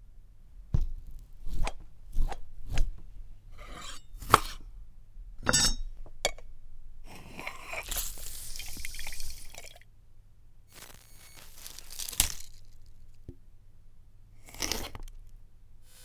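Kitchen foley: a string of sharp chops and crunches, then longer rasping scrapes through the middle and another crunch near the end.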